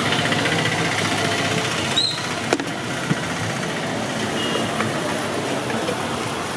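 A steady engine-like rumble mixed with hiss. A single sharp click comes about two and a half seconds in.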